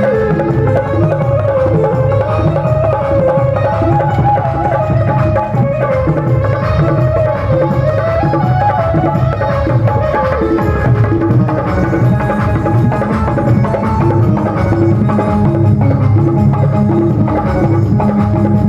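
Loud music with a steady drum rhythm, heavy bass and a wavering melody line, played without a break.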